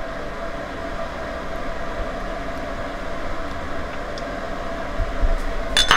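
A steady mechanical whirring hum with a faint steady whine in it, unchanging throughout; a short clink near the end.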